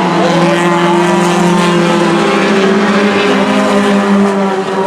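Four-cylinder stock race cars running around a short oval track, several engines heard together at a steady pitch.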